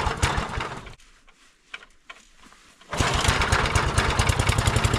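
Small gas engine of a homemade bandsaw mill sputters and dies about a second in, then starts again near three seconds and settles into a steady, even run, purring.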